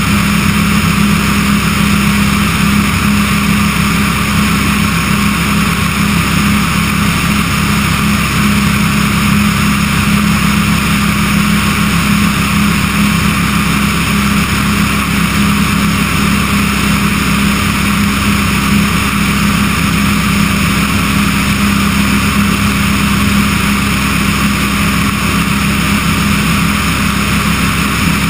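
Remos light sport aircraft in cruise flight: its propeller engine runs with a steady, unchanging drone, mixed with a constant rush of air past the outside-mounted camera.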